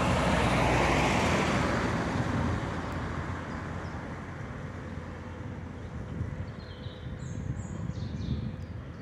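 A car drives past close by, its engine and tyre noise fading away over the first few seconds as it goes off down the road. Birds chirp near the end.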